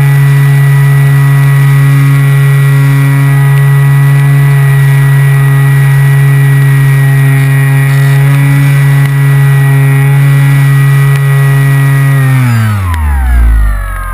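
Motor and propeller of a radio-controlled glider, heard from a camera on the plane itself: a loud, steady whine at constant throttle that winds down steeply in pitch about a second before the end as the motor is throttled back.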